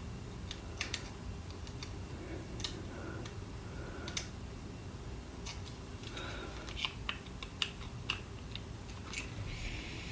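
Irregular light clicks and taps of a small flathead screwdriver working on the plastic body and tiny parts of a model locomotive being taken apart.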